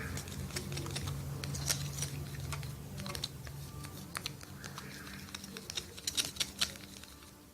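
Stirring utensil clicking and scraping against a small bowl while mixing shampoo and salt: a run of irregular light clicks, over a steady low hum.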